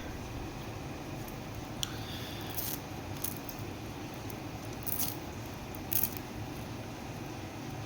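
Small clicks and soft rustles of silicone ear tips being handled and fitted onto in-ear monitors, a few separate ones, the loudest near the middle and about six seconds in, over a steady hiss of rain.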